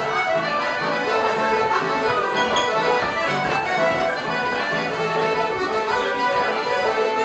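Traditional Irish céilí dance music with an accordion carrying the tune, playing steadily for set dancing.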